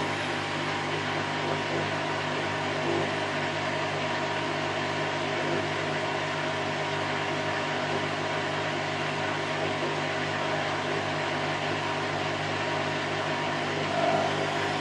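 Candy Grand O' F106 front-loading washing machine on its spin cycle at about 1000 rpm: a steady whirring rush from the drum, with a constant motor hum underneath and one brief louder swell near the end.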